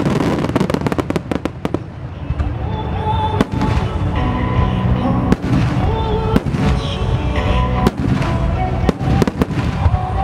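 Large aerial firework shells (shakudama) bursting in rapid succession, with booms and crackle coming thick and fast in the first two seconds and then every second or so. A sung ballad plays underneath over loudspeakers.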